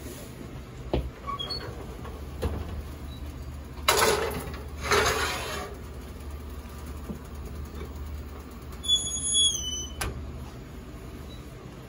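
Plate scraped across the wire rack of a Maruzen commercial gas range oven, twice, about four to six seconds in, then a short squeak falling in pitch and the oven door shutting with a sharp clack about ten seconds in, over a steady low kitchen hum.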